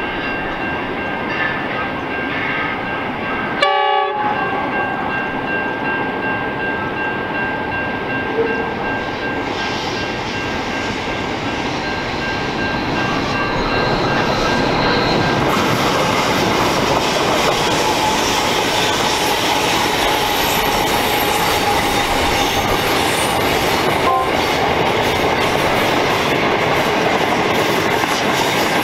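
Double-headed General Electric NR class diesel-electric locomotives, each with a V16 diesel, working a long freight train on a curve. The sound grows louder about halfway through as the locomotives come close and pass, then gives way to the steady rumble and clatter of freight wagons rolling by.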